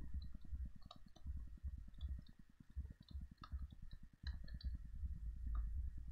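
Scattered light clicks and small taps of pen input as words are handwritten on a digital screen, over a faint low rumble.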